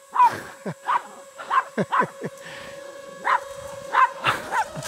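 Small dog barking in a string of short, high yaps at a hovering drone, over the drone's steady rotor hum.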